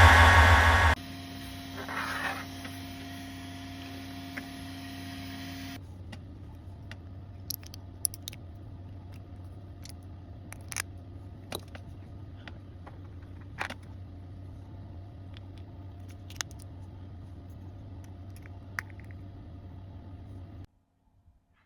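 Sharp clicks from a 3D-printed plastic clicker toy, several at uneven intervals over a low steady hum. A burst of music at the very start.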